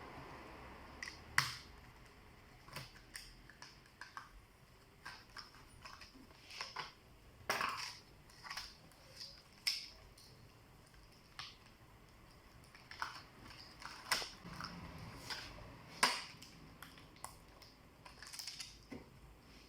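Laptop parts being handled and taken apart: irregular small clicks, snaps and light knocks, a dozen or more with short gaps between them.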